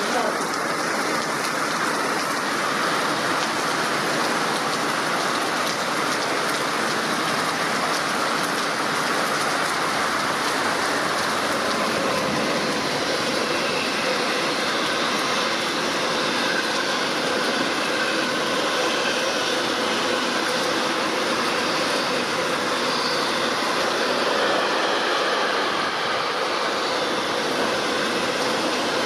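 Heavy rain pouring down while an electric locomotive hauling a container freight train rolls past, the rain and the passing wagons making one steady rushing noise. A few faint steady tones come in a little before halfway through, likely the wagons' wheels on the rails.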